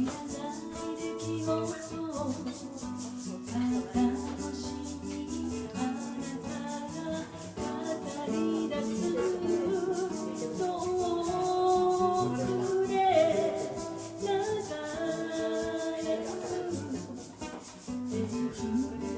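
Live band playing a song, with guitar chords and a shaker keeping a steady, quick beat.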